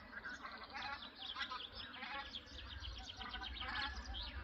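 Geese honking in a repeated series of calls, with starlings chattering in quick high chirps over them.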